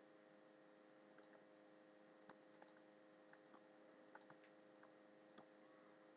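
Computer mouse clicks: about a dozen short, sharp clicks over roughly four seconds, several coming in quick pairs like double-clicks.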